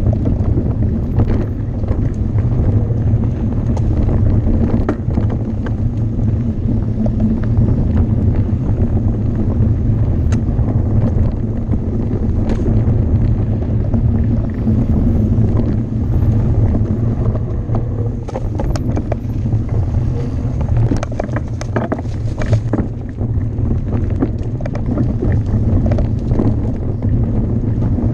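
Mountain bike riding down a dirt trail: wind buffeting the microphone over a steady low rumble of tyres and the bike's rattle, with many sharp knocks from bumps and stones, busiest a little past the middle.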